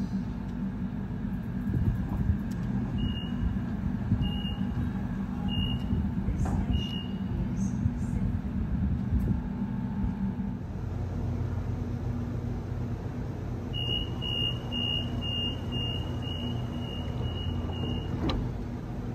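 Double-deck electric suburban train standing at the platform with a steady low hum. A door beep sounds four times slowly a few seconds in as the doors open. Later a rapid run of door-closing warning beeps ends in a thud as the doors shut near the end.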